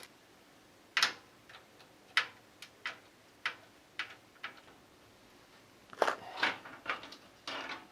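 Scattered short clicks and knocks from a computer tower's case parts and fan being handled and taken off, about a dozen spread over the seconds, bunched more closely about six seconds in and near the end.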